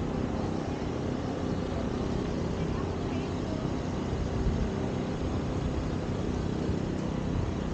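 Steady low rumble of a car driving.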